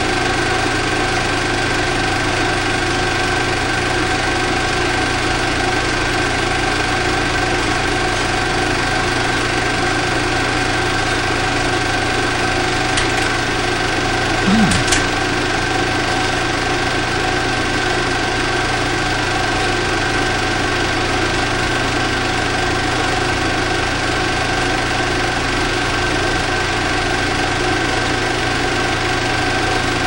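A small motor running steadily: an unbroken mechanical hum with several constant tones. A short bump about halfway through.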